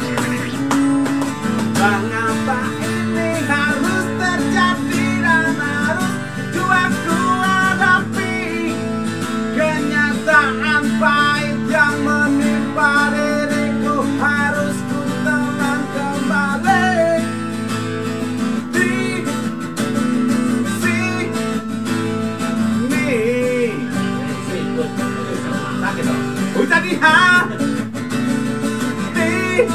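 Acoustic guitar strummed in a steady rhythm. Over it, a man's voice sings a wavering melody that comes and goes.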